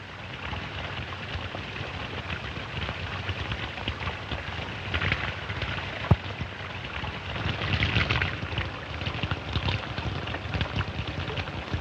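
Water of a small spring trickling and splashing off a rock as two men drink from it, mixed with the hiss and crackle of an old film soundtrack, with one sharp click about six seconds in.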